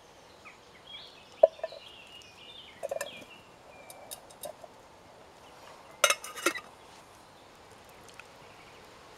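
Metal cookware clinking and clattering as chopped potatoes and a pot lid are handled, with a loud cluster of clanks about six seconds in. A bird calls in short stepped phrases during the first few seconds.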